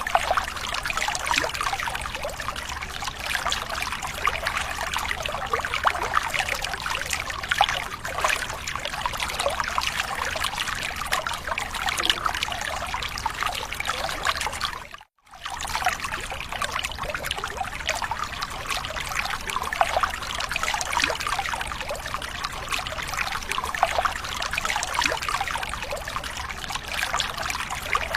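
Running water trickling and splashing in a steady, dense patter, with a brief break to near silence about halfway through.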